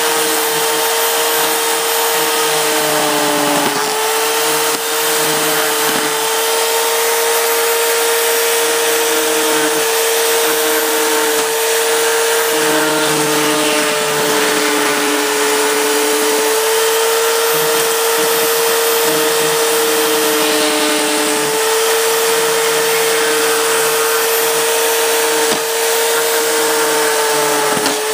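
Bauer 16-inch chainsaw running steadily without cutting, a high steady whine that wavers slightly in pitch, with a lower hum cutting in and out every second or two.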